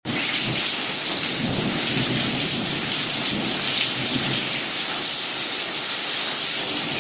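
Heavy rain pouring steadily onto a porch and driveway in a thunderstorm, picked up by a doorbell camera's microphone.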